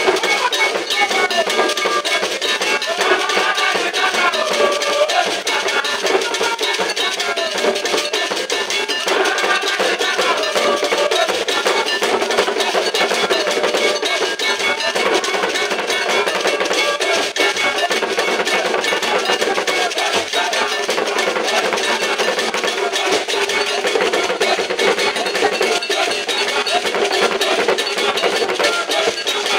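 Ghanaian traditional dance drumming: a repeating bell pattern rings over hand drums and other percussion.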